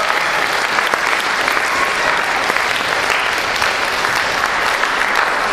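Theatre audience applauding steadily, a dense even patter of many hands clapping.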